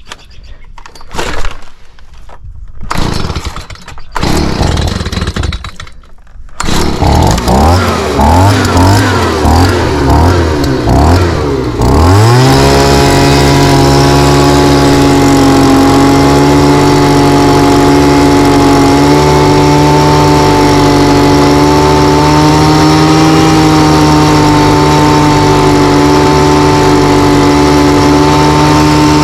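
After a few loud thumps, a small engine starts about six seconds in and runs unevenly, then is throttled up about twelve seconds in to a steady, high-revving run.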